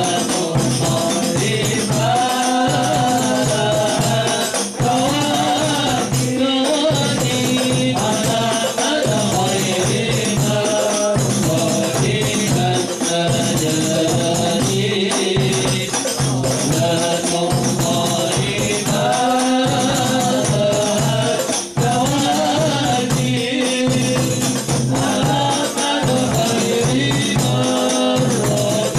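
Hadroh ensemble performing a sholawat: a group of men singing a devotional melody together over a steady rhythm of hand-struck frame drums and a large bass drum.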